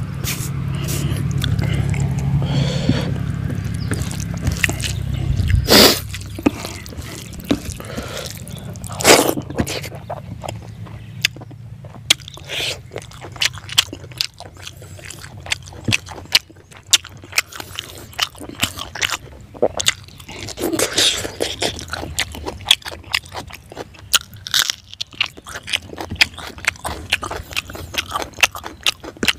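Close-up chewing and crunching of someone eating fried fish and rice by hand, with many small wet clicks and smacks. Two louder sharp cracks come about six and nine seconds in. A low rumble sits under the first few seconds.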